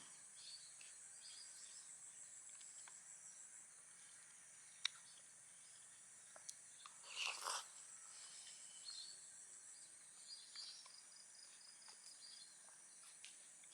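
Faint, steady high-pitched drone of insects, with a few soft clicks, a sharp tick about five seconds in, and a short louder sound about seven seconds in.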